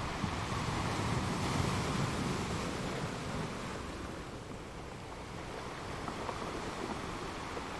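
Steady rushing noise of flowing floodwater. It softens and dulls about four seconds in.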